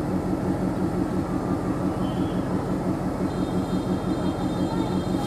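Diesel locomotive engine running as the train approaches out of sight: a steady low rumble with a regular pulsing beat.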